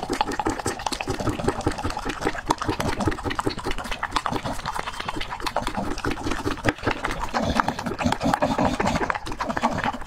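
A dog lapping beaten raw egg from a bowl: fast, continuous wet tongue-slaps and slurps.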